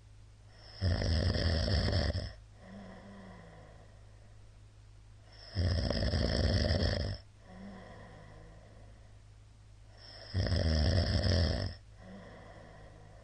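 A middle-aged man snoring loudly in his sleep: three long snores about every four and a half seconds, each on the in-breath, with a quieter breath between them.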